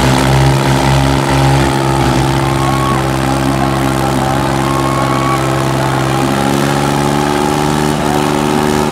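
Diesel tractor engines running flat out under heavy load as two tractors pull against each other in a tug-of-war. They give a loud, steady drone held at a constant pitch.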